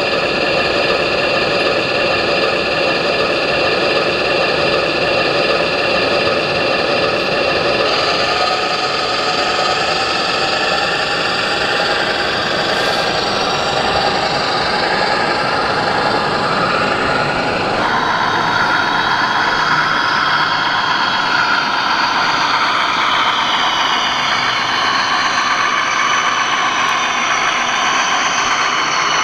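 Engine-sound modules in 1/14-scale RC trucks playing steady diesel truck engine sounds, over the loud din of a crowded hall. The mix of tones changes abruptly twice.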